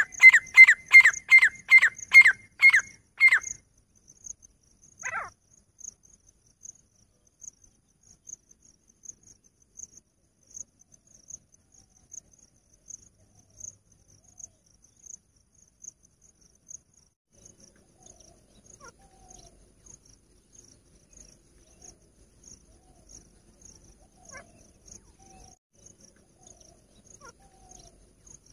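Female grey francolin calling: a fast run of loud, repeated notes for about the first three seconds, then one more note a second or so later. A cricket chirps steadily throughout, and faint, scattered bird notes come in the last ten seconds.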